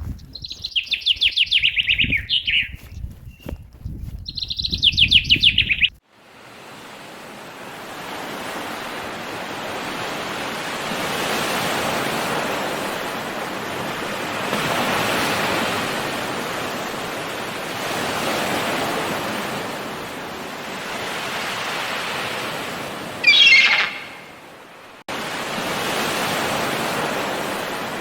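A small songbird singing two quick high trills, followed by rushing water that swells and eases every few seconds, with one more short bird chirp near the end.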